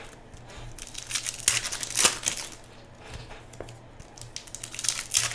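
Plastic trading-card pack wrappers crinkling and rustling as they are handled, in short irregular bursts with a tearing sound among them.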